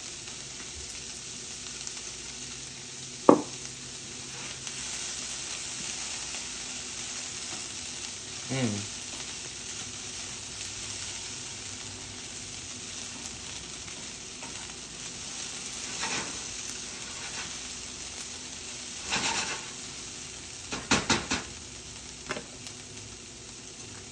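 Cauliflower rice with peas and corn sizzling in a stainless steel skillet, stirred and scraped with a spatula. A sharp knock about three seconds in, and a few short scrapes and taps on the pan later on.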